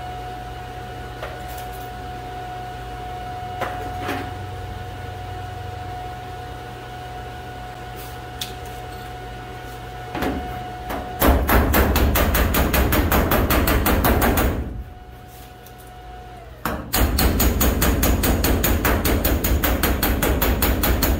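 Steady hum of a TIG welding arc on sheet steel for about eleven seconds. Then a hammer strikes the fresh weld seam on the 1967 GMC van's steel body panel in rapid blows, hammer welding to crush the hot seam flat. The hammering comes in two runs with a short break between them.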